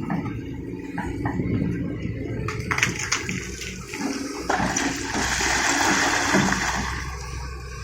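Liugong 921DI excavator's engine running with a steady low rumble. A few knocks come partway in, then a loud rushing, splashing noise lasts about two seconds.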